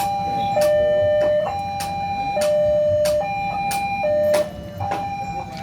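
Railway level-crossing warning alarm sounding an alternating two-tone chime, a higher note and a lower note taking turns about every second. Sharp clicks break into the tones: the alarm's sound is stuttering, or 'coughing', as the uploader puts it.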